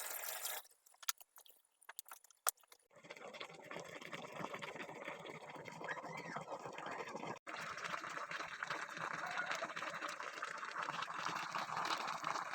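A few light clicks, then from about three seconds in a pot of fish and young papaya bubbling steadily on the boil.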